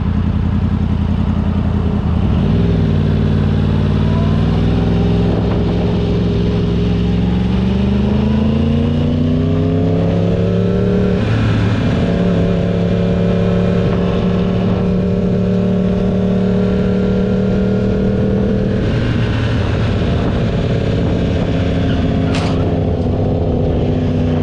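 Motorcycle engine running at road speed. Its pitch climbs as it accelerates through about ten seconds in, drops with a gear change, then holds steady before easing off near the end.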